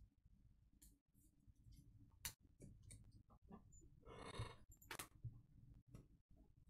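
Near silence, with a few faint clicks and a brief rustle, about four seconds in, from plastic card holders being handled.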